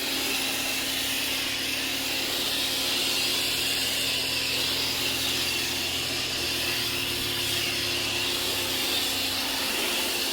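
Coyardor CP2500 electric pressure washer running steadily, its motor and pump holding an even hum under the hiss of the foam cannon spraying soap foam.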